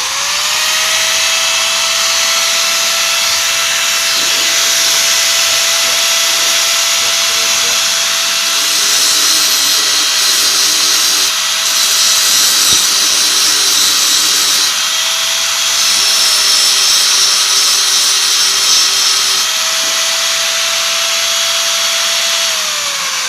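Hand angle grinder, its bearings just replaced, spinning up and running at full speed with a steady high whine, then winding down near the end. The running sound is smooth rather than rough, the sign that the new bearings have cured the grinder's harsh noise.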